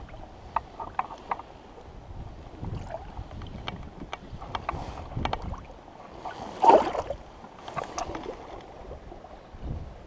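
Shallow water sloshing and lapping against a small boat's hull, with light splashes and ticks as a large fish is held in the water by hand and released. There is one louder splash about two-thirds of the way through. Wind rumbles on the microphone.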